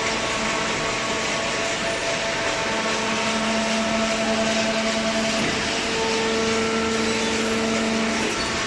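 Hydraulic carton baler running: a steady machine noise with a pump hum that strengthens about a third of the way in, shifts in tone around halfway, and drops away near the end.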